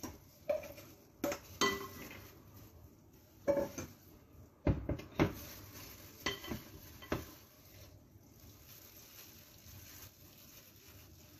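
Kitchen dishes and utensils clinking and knocking, about eight separate knocks over the first seven seconds, a few with a short ring, then quieter.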